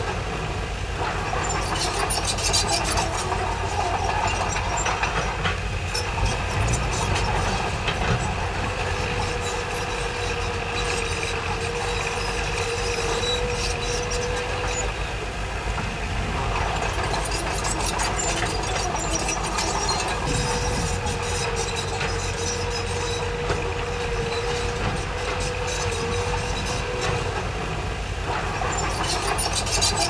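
Heavy diesel earthmoving machinery at work: a steady low engine drone, with a whine that comes in twice and holds for about six seconds each time, and recurring spells of clattering.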